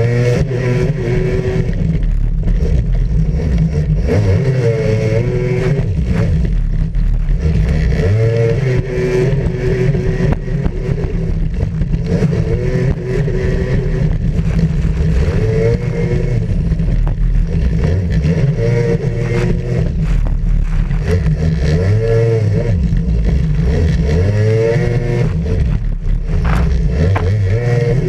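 Racing jet ski's engine running hard from close up. Its pitch rises and falls again and again as the throttle is opened and eased through the turns.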